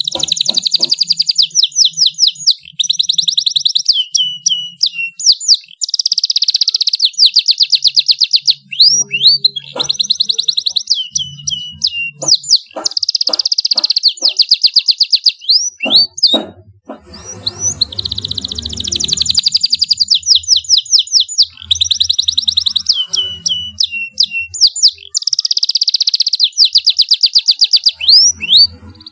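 Domestic canary singing loudly: long, fast trills of rapidly repeated high notes and swooping rolls, in phrases one or two seconds long, with short pauses between them.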